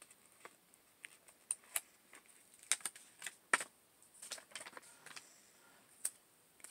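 Paper sticker sheet and planner pages being handled by hand: faint, irregular clicks and short rustles of paper.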